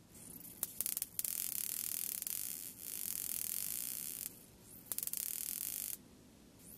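High-voltage static discharge crackling and hissing between a charged fingertip and an LED's wire lead: a quick run of sharp snaps, then a steady hiss for about three seconds. It breaks off, then comes back with a couple more snaps and about a second of hiss.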